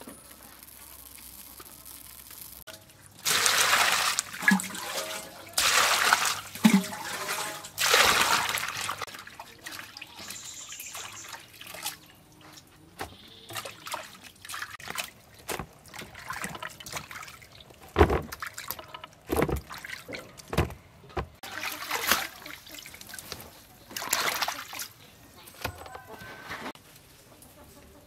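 Water splashing and sloshing as leafy greens are washed by hand in a steel bowl of water, in three loud spells early on and a few shorter ones later, with sharp knocks and clicks in between.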